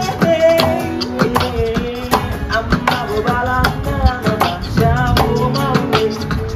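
Acoustic guitar strummed with a man singing, while another hand slaps a rhythm on the guitar's wooden body, a steady run of sharp taps over the chords.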